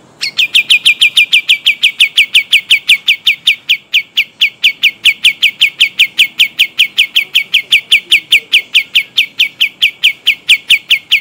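Kapas tembak songbird singing a long rolling trill: a fast, even run of about five short notes a second, each sliding down in pitch, starting just after the beginning and carrying on without a break.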